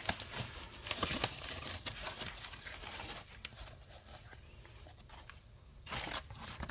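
Packaging being handled: foam padding and wrapping rustling and crinkling as they are pulled from a small box, with scattered light taps and a louder rustle about six seconds in.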